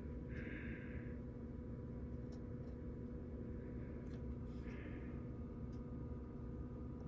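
A steady low electrical hum with a few faint ticks, broken twice by a short soft hiss: once near the start and once about five seconds in.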